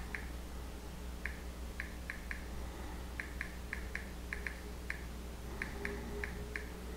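Samsung Galaxy S4 on-screen keyboard key-press ticks: short, high clicks at an uneven typing pace, several a second, with a pause about a second in, over a steady low hum.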